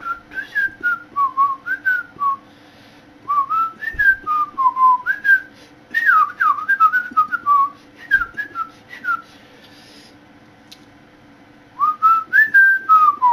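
A songbird's loud whistled song: about five phrases of quick notes that slide up and down, each phrase a second or two long, with short pauses between and a longer pause before the last.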